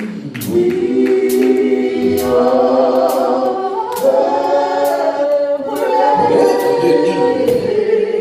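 Gospel choir singing slow, long-held notes in several parts, with a sharp beat about twice a second keeping time.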